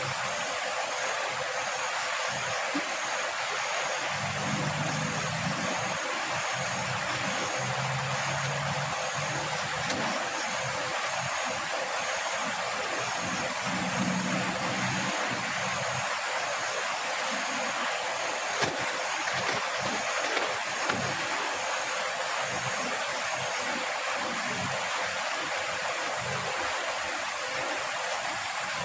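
Steady rush of flowing river water, with a faint low engine hum coming and going in the first half.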